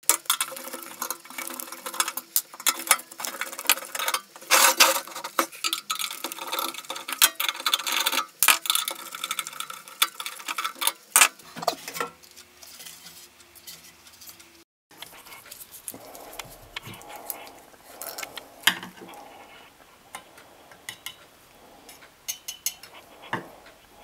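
Metal clinks, taps and knocks as a magnetron is handled and lifted out of a dismantled microwave oven's sheet-metal housing. They come thick and busy for about the first twelve seconds; after a brief cut about fifteen seconds in, only lighter scattered taps remain.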